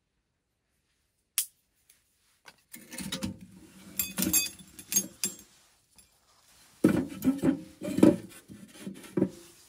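Split firewood being laid into the firebox of a small sheet-metal wood stove: wood knocking and scraping on thin metal with a light metallic ring, in two bouts of clatter after a single click.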